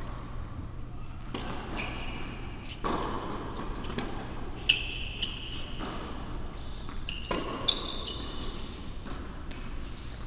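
Tennis shoes squeaking several times on a hard court, the loudest squeak about halfway through, mixed with tennis ball thuds and bounces. A steady low hum of the large indoor hall runs underneath.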